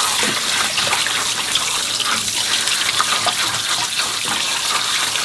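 Tap water running steadily into a sink as sea cucumbers are rinsed under it.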